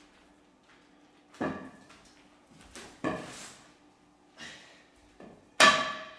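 Wooden stick knocking and slapping against the plastic sheet on the floor: loud knocks about a second and a half in and about three seconds in, softer ones between, and the loudest near the end with a short ring.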